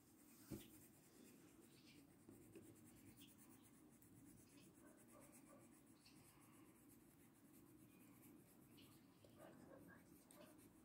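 Faint scratching of a coloured pencil shading on a paper colouring-book page, with a light tap about half a second in.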